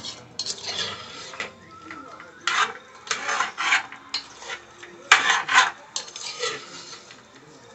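A utensil stirring sliced okra in a pot, scraping against the pot in a series of irregular strokes.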